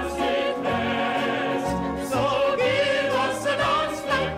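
Music: a chorus of voices singing with orchestral accompaniment, the sung notes wavering with vibrato over sustained bass notes.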